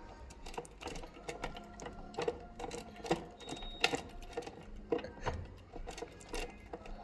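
Irregular clicks, knocks and rattles of a key turning in the cover lock of a codelock keypad and the keypad's cover being worked loose and opened by hand.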